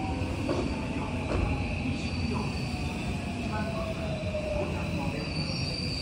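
JR West 323-series electric train standing at the platform with its doors open: a steady high tone over a low rumble from the stopped train, with faint voices of passengers.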